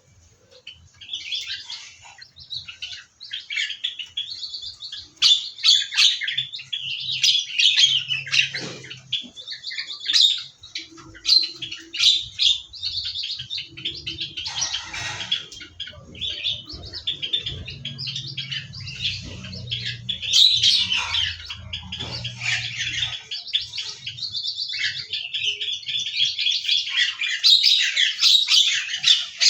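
Several small aviary birds chirping and calling over one another in a busy, continuous chatter of short high notes and trills.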